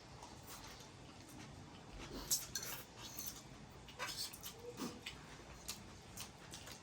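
Eating noodles: scattered light clicks of a utensil against a bowl, and mouth sounds of eating.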